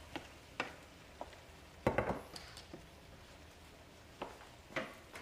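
Wooden spoon stirring ground meat and frozen mixed vegetables in a skillet: scattered light knocks and scrapes of the spoon against the pan, the loudest cluster about two seconds in.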